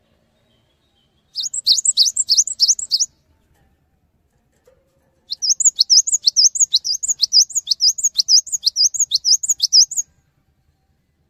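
Cinereous tit (gelatik batu) singing: two bouts of a fast, evenly repeated sharp high note, a short bout about a second in and a longer one from about five seconds to ten.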